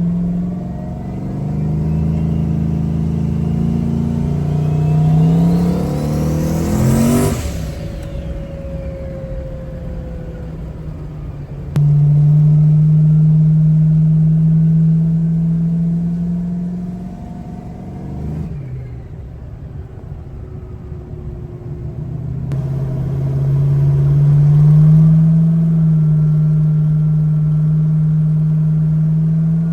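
Turbocharged LS 5.3 V8, freshly fitted with a bigger turbo camshaft, running under way. The engine note rises to a peak about 7 seconds in and then falls away, and it changes abruptly a few times between steady running passages.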